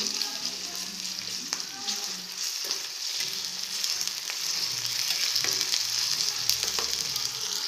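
Sliced onions and ginger-garlic paste sizzling in hot oil in a stainless steel pan, stirred with a spoon that now and then ticks and scrapes against the metal.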